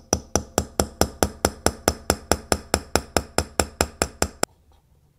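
A hammer gently tapping a staking punch, steel on steel, driving a replacement balance staff into the friction-fit hub of a Waltham Vanguard balance wheel. The taps come evenly at about four a second, each with a faint high ring, and stop shortly before the end.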